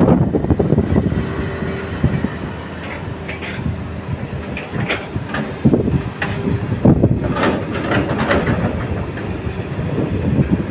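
Crawler excavator's diesel engine running under load as it scoops earth and swings the loaded bucket, with a steady low machine noise. Sharp metallic clanks and knocks from the bucket and boom come several times, most between about five and eight seconds in.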